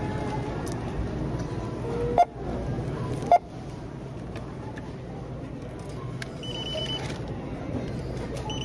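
Checkout-lane background noise with two sharp knocks about two and three seconds in, items set down on the counter, and a short burst of rapid electronic beeps from the checkout register later on.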